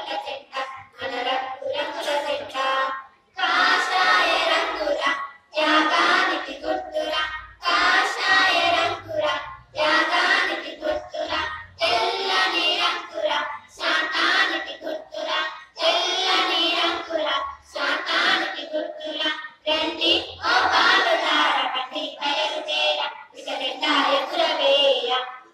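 A group of girls singing a Telugu patriotic song together through a microphone and loudspeaker, in phrases with short breaks between them.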